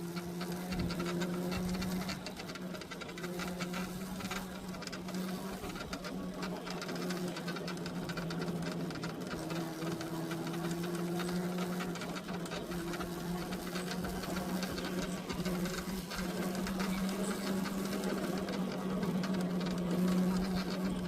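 Ola S1 Pro electric scooter running, a steady low hum with a fast buzzing rattle over it: an abnormal noise that sounds as if something has broken, which the owner suspects is a part whose grease was washed out by water.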